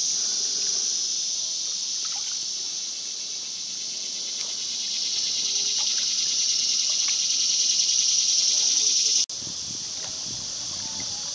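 Steady high-pitched buzz of an insect chorus from the wooded riverbanks, growing louder and then cutting off suddenly about nine seconds in, with faint water trickles from the canoe paddle underneath.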